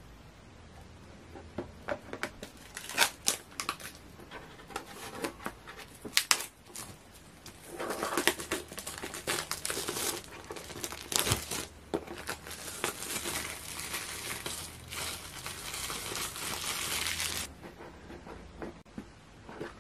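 Plastic shrink wrap being torn and peeled off a smartphone box, crinkling in irregular bursts with a few sharp crackles. It goes quieter near the end once the bare box is handled.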